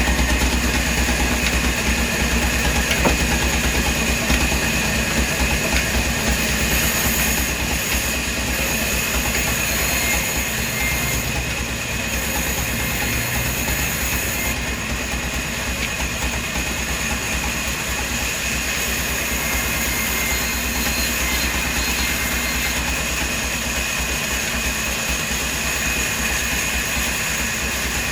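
Heavy machinery running steadily: a constant mechanical drone with no distinct strokes or breaks.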